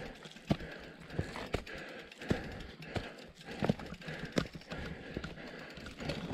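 Canyon Torque full-suspension mountain bike rolling slowly over a rocky dirt trail: tyres running over stones and leaves, with irregular knocks and rattles from the bike about every half second to second.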